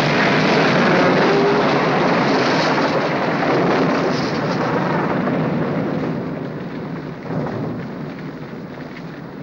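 A large bonfire, the burning wicker effigy, burning with a dense, steady rushing noise that fades away over the last few seconds.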